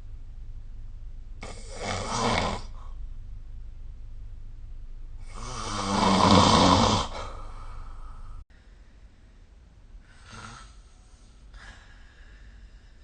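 A person snoring in sleep: one snore about two seconds in, a louder, longer snore around six seconds, then two fainter ones near the end. A steady low hum runs underneath, and it drops abruptly partway through.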